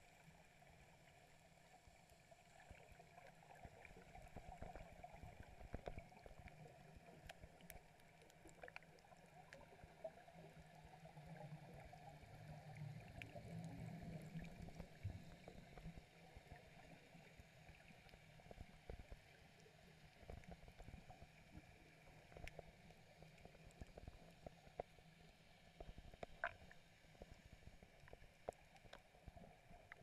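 Faint, muffled underwater sound through a camera housing: gurgling of scuba divers' exhaled regulator bubbles, louder for a few seconds near the middle, with scattered small clicks.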